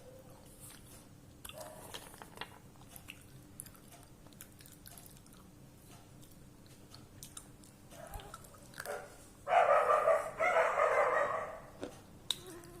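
Someone biting and chewing crunchy food close to the microphone, in small crackling clicks, with a much louder crunching stretch of about two seconds near the end.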